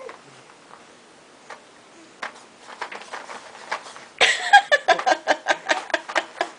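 A baby kicking hard and fast, a quick rhythmic run of soft thumps and rustles at about six a second that starts with a sudden burst about four seconds in; before that only a few faint ticks.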